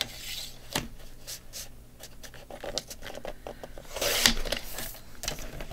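Sliding paper trimmer cutting a sheet of patterned paper: a few light clicks and taps as the paper and cutter are set, then a short scraping rasp about four seconds in as the blade runs along the rail through the paper.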